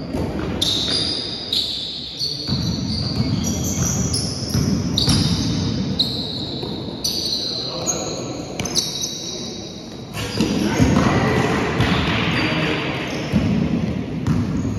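Basketball game sounds in a large sports hall: sneakers squeaking on the court floor again and again, the ball bouncing, and players' voices calling out.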